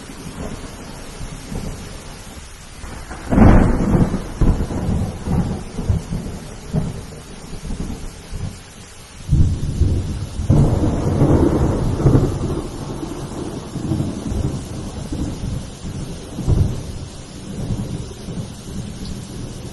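Thunderstorm: steady rain with two peals of thunder, a sudden clap about three seconds in and a longer rolling rumble from about nine seconds in.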